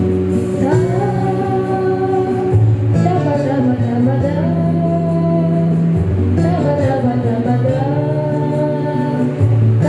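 A boy singing a melody over a recorded backing track with a steady bass line.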